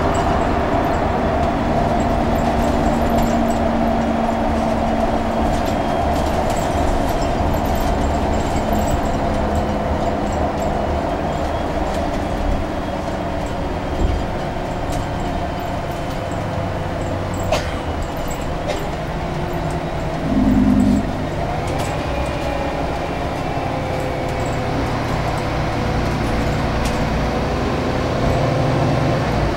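Cabin noise inside a Scania K360UA articulated bus on the move: its engine and driveline run steadily, with a drawn-out tone slowly sliding in pitch. A brief low tone sounds for about a second about two-thirds of the way through.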